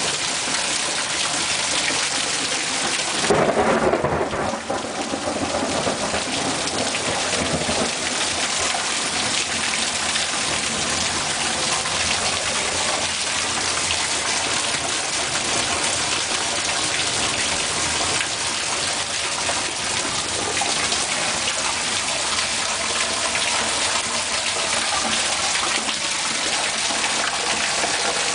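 Heavy thunderstorm rain pouring steadily, with a loud clap of thunder about three seconds in that rumbles and fades over a second or two.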